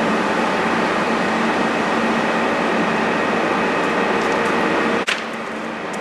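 LarsLap Model C1 valve grinder running, lapping the gasket seat inside a pressure safety valve's bore: a steady mechanical grinding noise with a steady hum under it. About five seconds in there is a brief click, and the noise then carries on slightly quieter.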